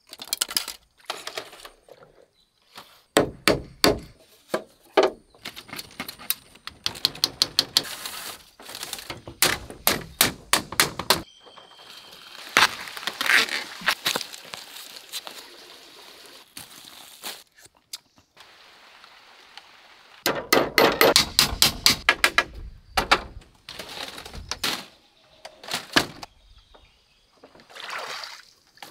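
Runs of sharp knocks and thuds, several a second, broken off abruptly a few times, with a stretch of steady hiss in the middle.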